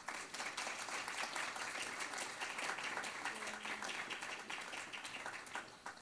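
Audience applauding, a dense patter of many hands clapping that eases a little and stops near the end.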